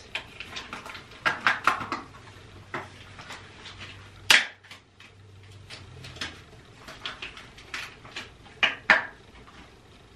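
Tight disposable gloves being pulled on and worked over the hands: a run of short rubbery snaps and rustles, the sharpest about four seconds in and two more near the end.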